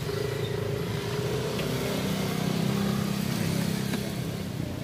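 A motor vehicle's engine running past on the street, a steady hum that swells about halfway through and eases off near the end.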